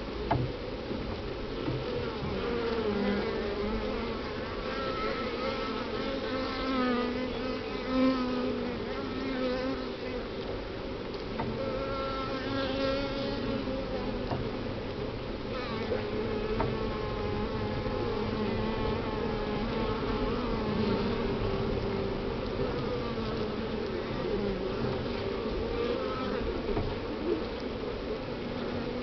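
Honeybee colony in an open top-bar hive buzzing: many bees' wings humming at once in a steady drone, with overlapping pitches that waver up and down.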